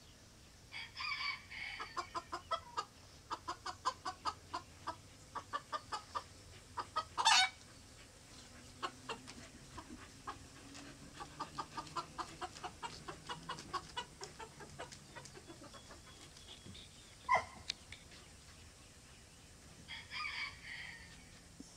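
Rooster clucking in quick runs of short notes, about three a second, for the first fifteen seconds or so, with a sudden louder sound about seven seconds in and another near seventeen seconds.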